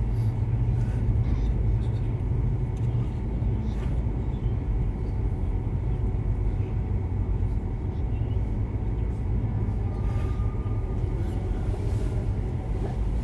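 Steady low background rumble with a few faint, soft knocks now and then.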